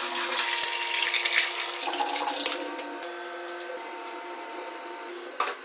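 Water pouring from a plastic jug into a glass aquarium tank, loudest over the first two seconds or so and then a quieter steady flow. A short knock comes near the end.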